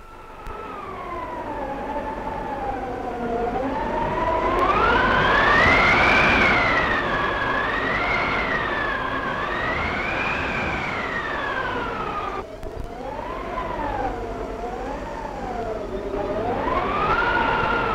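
Howling gale in a blizzard: a wailing tone that slowly rises and falls over a rushing noise, loudest about six seconds in, with a brief break about twelve seconds in.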